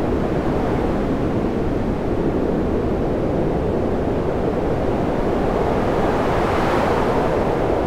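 A steady, fairly loud rushing noise with no pitch, heaviest in the low-middle range; its higher part swells a little about six to seven seconds in.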